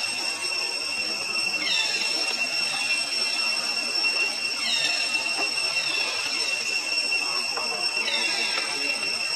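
Outdoor forest ambience: a steady high-pitched whine with short falling chirps every two to three seconds, over a constant hiss.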